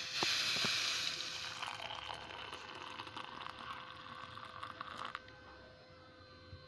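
Hot boiled milk poured in a thin stream into a mug of beaten coffee: a splashing, frothy hiss that starts loud, fades, and stops about five seconds in.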